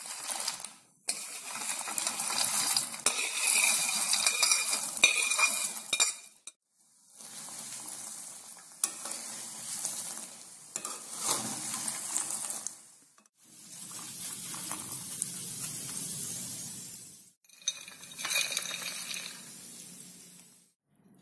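Masala-coated groundnuts sizzling as they deep-fry in hot groundnut oil, with a metal slotted spatula stirring and clinking against the metal pan. The frying sound comes in several stretches that cut off abruptly.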